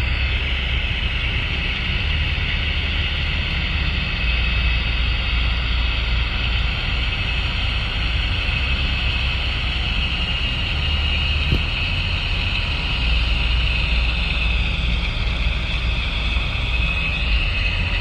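Steady low rumble of a distant John Deere tractor running under load as it pulls a planter, with a steady high hiss over it.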